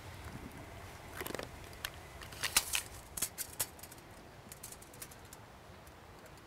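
A scatter of small clicks and light metallic scrapes as the telescopic metal elements of a 2-metre dipole antenna are pulled out and handled against a tape measure, the loudest about two and a half seconds in.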